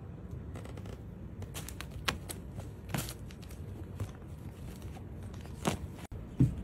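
A playing cat makes a scatter of short crinkles and rustles, with a dull thump near the end.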